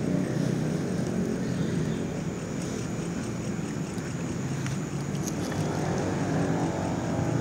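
A small engine running steadily with a low, even drone.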